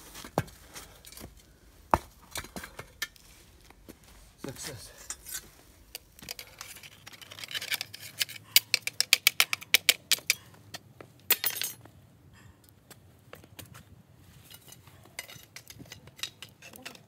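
Metal tongs clinking and knocking against a steel can furnace as it is handled. About seven seconds in comes a quick run of light metallic clinks, several a second, lasting a few seconds.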